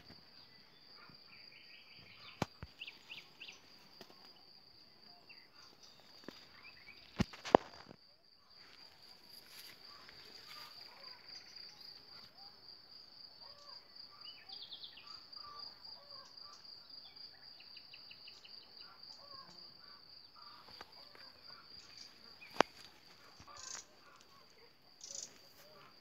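An insect trills continuously on one high, steady, finely pulsing note, in the manner of a cricket. It is joined now and then by short runs of quick chirps, and by a few sharp clicks, the loudest about seven seconds in and another near twenty-three seconds.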